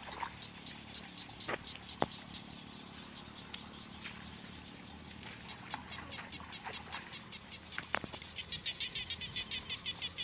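Countryside ambience of small animals chirping: many short chirps, running into a fast, even series of about five a second near the end, with a couple of sharp clicks.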